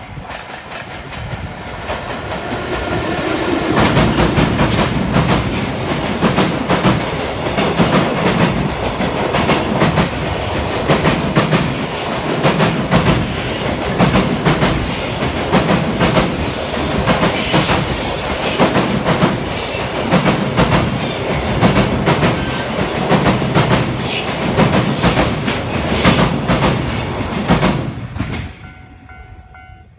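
Electric-hauled freight container train passing close by, its wagon wheels clattering over the rail joints in an even beat of about one pulse a second. The noise builds over the first few seconds as the locomotive arrives and drops away near the end as the last wagon clears.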